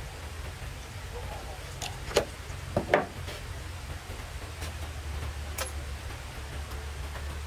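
A few sharp knocks, the loudest about two and three seconds in, over a steady low rumble.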